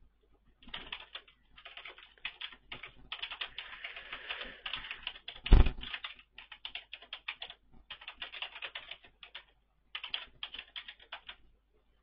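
Computer keyboard typing in quick runs of keystrokes with short pauses between them, and one louder thump about halfway through.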